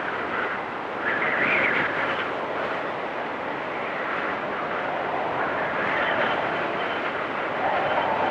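Storm ambience: a steady rush of wind and rain with no distinct pitch, swelling in gusts about a second in, around six seconds in and again near the end.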